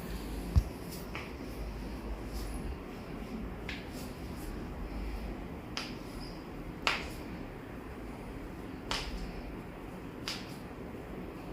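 A low thump about half a second in, then a string of sharp, separate clicks and pops, the loudest about seven seconds in: joints cracking during a chiropractic spinal adjustment.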